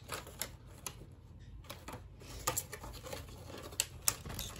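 Clear plastic blister packaging being handled and pried apart by hand: scattered light clicks and crinkles, with a few sharper snaps.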